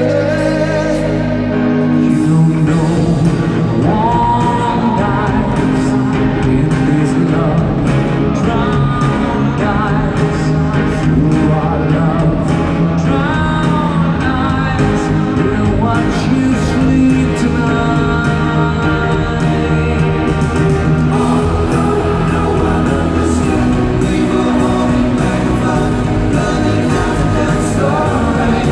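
Live pop-rock band with male lead and harmony vocals singing a ballad over keyboards, guitar and drums, heard through an arena's PA from the audience.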